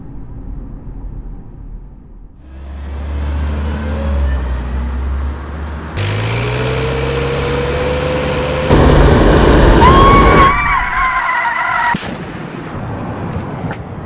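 Car braking hard inside the cabin, tyres skidding and squealing as it goes into a collision at about 55 km/h. The noise swells from a low rumble, jumps up about six seconds in, and is loudest for a couple of seconds around the ninth second. It falls away sharply near the twelfth second.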